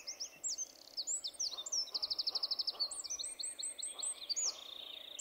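Small forest songbirds singing and calling: many high, quick chirps and downward-sweeping notes overlapping, with a fast trill of even notes about two seconds in.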